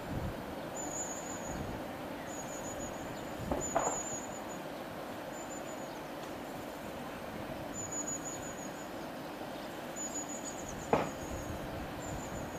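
London Midland diesel multiple unit approaching from a distance, a faint steady low running sound. Short high-pitched squeaks repeat about once a second, and two brief sharp sounds come about four and eleven seconds in.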